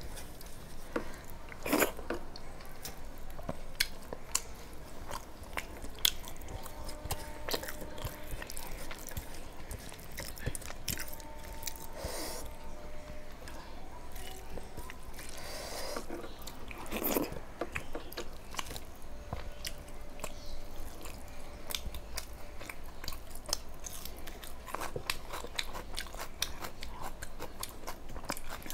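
A person chewing and biting food close to the microphone, with many small sharp clicks of mouth and fingers as rice and curry are eaten by hand from a steel plate.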